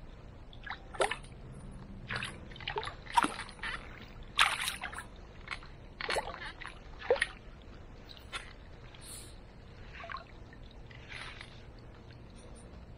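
Short splashes and sloshes of river water in a landing net as a barbel shifts about inside it. Several come close together in the first seven seconds or so, the loudest about four and a half seconds in, then fewer and fainter ones.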